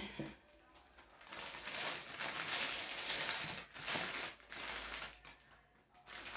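Rustling and crinkling of plastic being handled, in a few stretches of a second or two with short pauses between.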